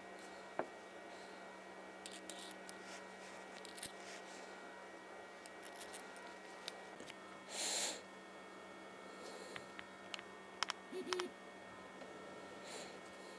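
Small metal parts of a Shimano 105 SPD pedal being handled during reassembly: scattered light clicks and taps, a brief rubbing sound about 8 s in, and a short low squeak near 11 s, over a steady faint hum.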